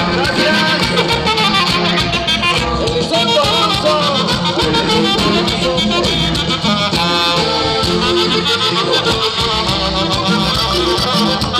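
Norteño band music: a melody line over a steady bass beat.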